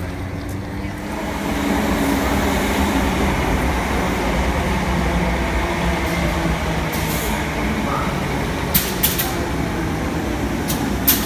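Greater Anglia electric multiple unit moving along the platform: a steady rumble and hum of the train that grows louder about a second and a half in, with a few sharp wheel clicks near the end.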